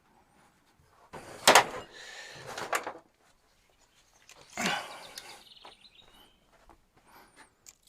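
Metal tape measure being pulled out along a log and handled: short scraping noises with sharp clicks about one and a half seconds and near three seconds in, then another short scrape about five seconds in.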